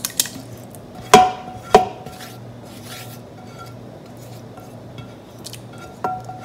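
A silicone spatula scraping chopped spinach out of a nonstick pan into a pot. Two loud sharp knocks ring out about a second in, with lighter taps and clicks after and one more knock near the end.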